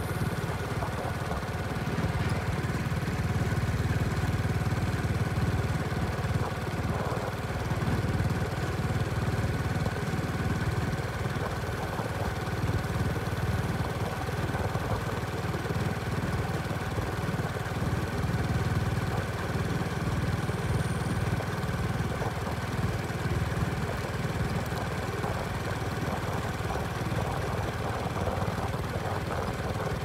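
The engine of a moving vehicle running steadily at an even speed, with tyre and road noise over it.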